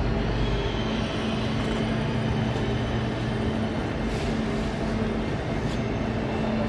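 Railway station concourse ambience under a large glass train shed: a steady low hum over a constant wash of noise from passengers moving about, with a couple of faint clicks about four seconds in and again near six.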